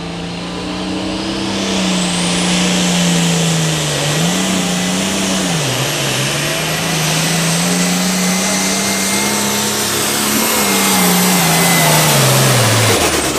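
Farmall 1206 Pro Farm pulling tractor's turbocharged diesel at full throttle pulling the sled, with a high turbo whistle that climbs about a second in and holds. The engine note dips twice in the middle, then sags and falls away over the last couple of seconds as the tractor is pulled down at the end of its run.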